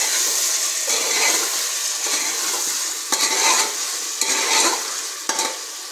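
Potatoes and spice masala frying in oil in a pressure cooker, a steady sizzle, while a steel spatula stirs and scrapes against the pot in strokes about once a second. The oil has separated from the masala, the sign that it is well fried.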